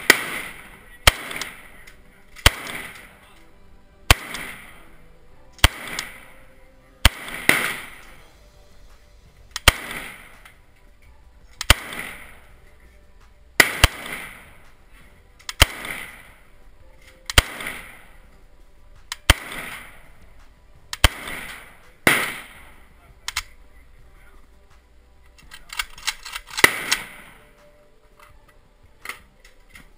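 AK-pattern rifle fired in slow single aimed shots, about one every one and a half to two seconds, each sharp crack trailing off in echo; some fifteen shots in all, followed near the end by a brief rattle of clicks.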